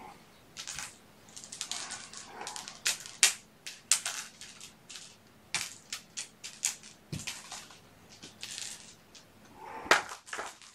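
Irregular scratchy rustling with many sharp clicks, a few of them much louder, from kittens playing and a man moving things about on a fleece blanket among plastic toys.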